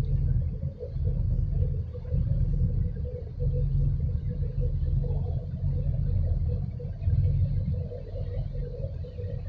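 Low, uneven rumble that swells and fades every second or two, over a steady engine drone from ships under way in the harbour.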